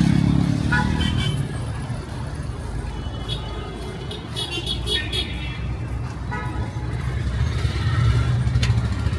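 Busy city street traffic: vehicle engines passing close, loudest at the start and again near the end, with several short car horn toots in between.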